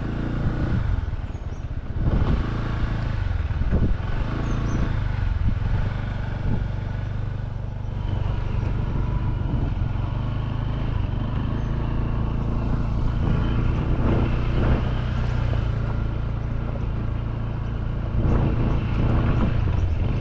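Motorcycle engine running as it is ridden, its note rising and falling with the throttle.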